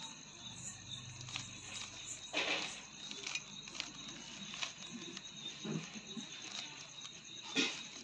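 Stickerless 3x3 Rubik's cube being turned by hand: light plastic clicks as the layers snap round, with two louder clacking turns, one about two and a half seconds in and one near the end.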